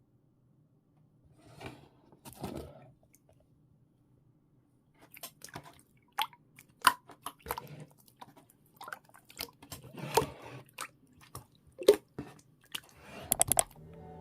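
Slime being squeezed and poked by hand, giving irregular short wet clicks, pops and squelches, with a quick flurry of sharp pops near the end.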